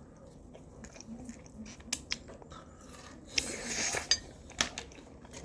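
Mukbang eating sounds: biting and chewing food, with scattered light clicks and taps of utensils and dishes, and a short crunchy, noisy stretch about three and a half seconds in.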